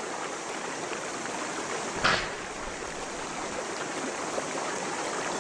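Hippopotamus surging through a swollen river, water rushing and sloshing around its body, with one louder splash about two seconds in.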